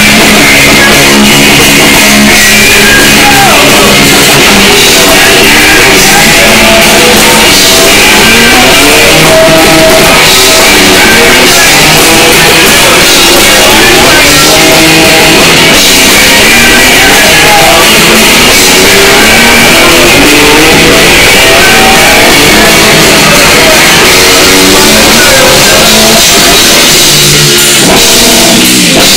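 Live rock band playing loudly: electric guitar and drum kit, with a singer's voice in the mix.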